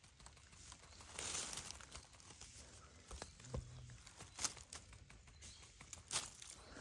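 Footsteps in forest leaf litter: faint rustling and crackling of dry leaves and twigs, with a longer rustle about a second in and a couple of sharp snaps later on.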